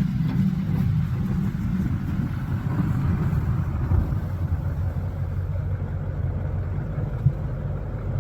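Plow truck's engine running steadily as the truck drives, a low rumble with some road noise.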